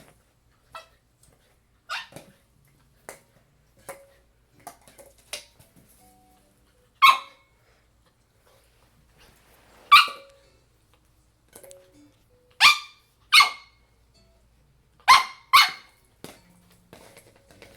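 Shiba Inu puppy barking in short, sharp yips at irregular intervals, sometimes in quick pairs, the loudest ones in the second half.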